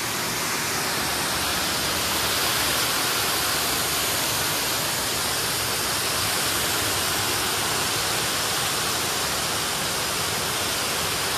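Waterfall: a steady, loud rush of falling water with no change in pitch or rhythm.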